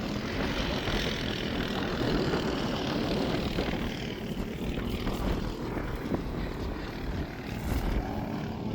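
Wind buffeting the microphone: a steady low rumble and rushing noise that swells and ebbs a little.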